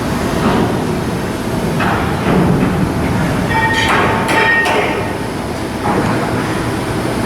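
Shipbuilding work noise: steady machinery noise with repeated metal knocks, and a ringing metallic squeal with sharp clanks about halfway through.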